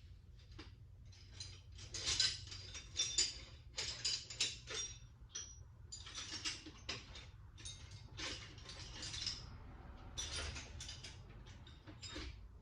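Metal tools clinking and clattering in irregular bunches of sharp knocks with brief metallic ringing, as someone rummages through hand tools.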